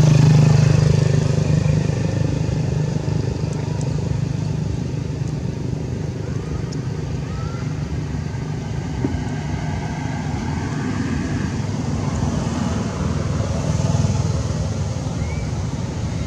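An engine running with a steady low hum. It is loudest in the first couple of seconds, then eases off and carries on.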